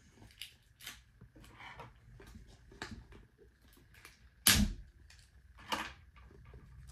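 Scattered clicks and knocks of vinyl figures being moved and set down inside a clear plastic storage tub, the sharpest knock about four and a half seconds in.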